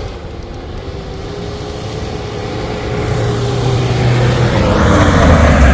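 Pickup truck running on a dirt course, getting steadily louder as it comes closer, with a rougher rushing noise building near the end.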